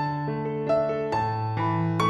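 Soft background piano music: a gentle melody of sustained notes over held bass notes.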